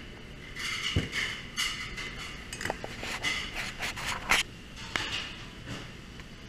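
Gloved hands and a knife working a raw whole pig carcass on a stainless-steel table: a string of clicks, knocks and rustling, the sharpest knock about four seconds in.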